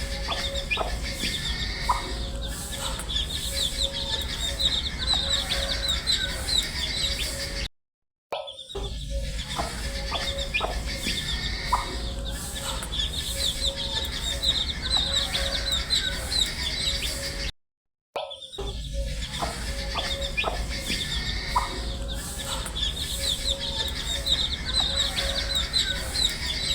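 A brood of baby chicks peeping continuously, many short high chirps overlapping, over a low steady hum. The same few seconds of recording are looped, cutting out to silence twice for a split second.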